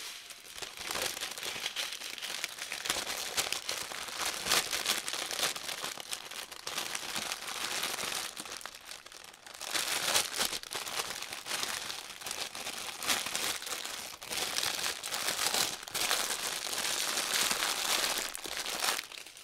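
Clear plastic bag crinkling and crackling as small bags of diamond painting drills are handled and pushed into it, with a short lull about nine seconds in.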